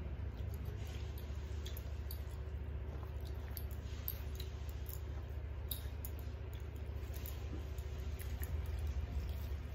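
Eating sounds: fingers mixing rice and curry on steel plates and mouths chewing, heard as scattered small clicks and squishes over a steady low hum.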